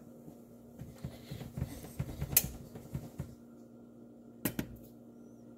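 Clicks and light knocks as the buttons on a Frigidaire electric range's control panel are pressed: a cluster of taps, one sharper click about halfway, and a quick double click near the end, over a steady low hum.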